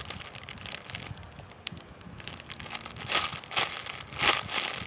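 Plastic bag crinkling as a squishy toy inside it is handled, in a run of rustling bursts that grow louder about three seconds in.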